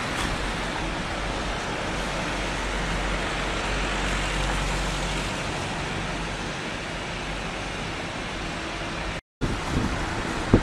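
Steady rush of wind on the microphone mixed with water and passing road traffic, the low rumble easing about halfway through. The sound cuts out for a moment near the end.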